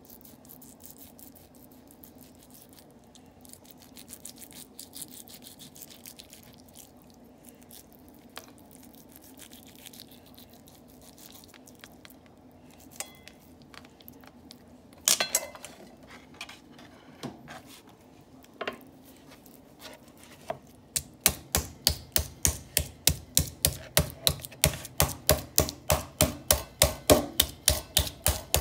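Raw chicken breast being butterflied with a knife on a cutting board, with scattered light taps and clicks and one louder knock about halfway. About two-thirds of the way in it changes to a meat mallet pounding the chicken flat, steady sharp strikes about three a second.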